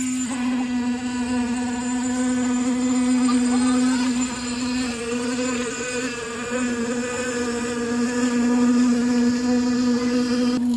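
A small motor or engine running steadily with a buzzing hum; its pitch sags slightly a few seconds in, then recovers.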